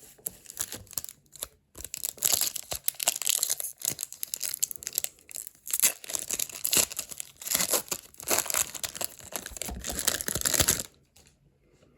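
Foil wrapper of a Pokémon card booster pack being torn open and crinkled, a long run of crackling rustles that stops near the end.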